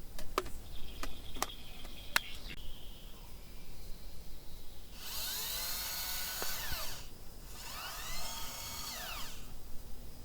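A small high-speed electric motor whirring in two bursts of about two seconds each, its pitch rising as it spins up and falling as it winds down, after three sharp clicks.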